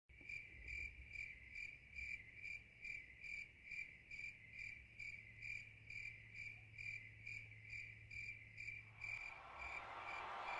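A single cricket chirping in a steady rhythm of about two chirps a second, over a low hum. Near the end a broad wash of noise fades in and rises.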